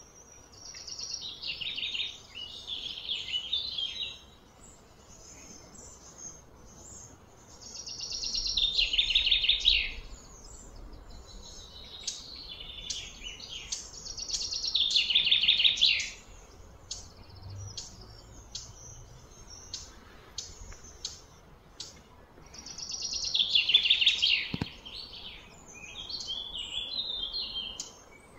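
Bird calling: a loud, rapid chirping trill about two seconds long, repeated four times, each building up and then stopping abruptly, with softer scattered chirps in between.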